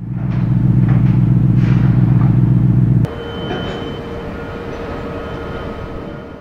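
A loud, deep, steady diesel engine rumble, cut off abruptly about three seconds in. After it comes quieter heavy machinery running with a steady whine over it, from the diesel and hydraulics of a Sennebogen 835E material handler.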